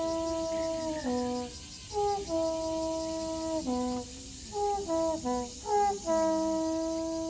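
Horn sounding the deer-calling melody that summons Nara's deer: phrases of quick short notes leading into long held notes, the last held note starting about six seconds in.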